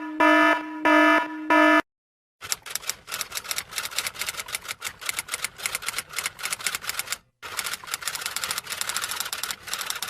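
Four short buzzing beeps at one pitch, then a pause and a long run of rapid, uneven clicking like keys being typed, with a brief break near the end.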